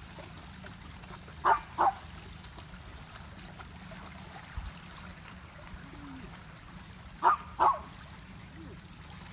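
A dog barks in two quick pairs of sharp barks, about six seconds apart, over a steady wash of waves lapping at the shore.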